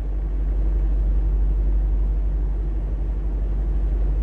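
Steady low rumble of a truck's diesel engine running, heard from inside the cab.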